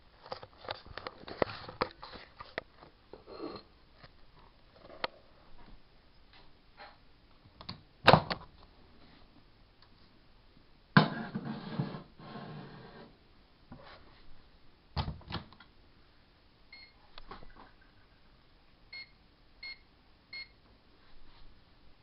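Handling noises as a plate is set into a GE Dual Wave microwave oven: scattered clicks and knocks, a sharp knock about eight seconds in, a clatter lasting a couple of seconds from about eleven seconds, and another knock near fifteen seconds. Near the end come four short high beeps from the microwave's keypad as the cooking time is entered.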